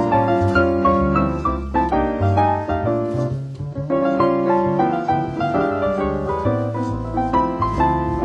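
Background instrumental music led by piano, notes moving quickly over held low notes.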